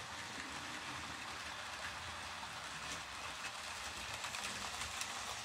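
Model trains running on the layout: a steady whir and hiss of wheels and motors on the track. Faint clicks of wheels over rail joints and points come more often in the second half, as a train passes close by.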